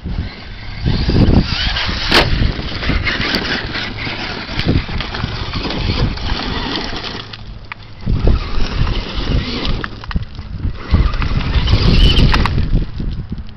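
Traxxas E-Maxx electric RC monster truck driving up a loose gravel pile: its twin brushed motors and gear drive whining in surges as the throttle comes and goes, with the tyres scrabbling on the stones.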